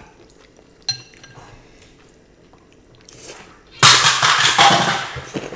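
A light clink of cutlery on a dish about a second in, then a loud crackling crunch lasting over a second near the end, as of crisp-fried chicken being bitten and chewed close to the microphone.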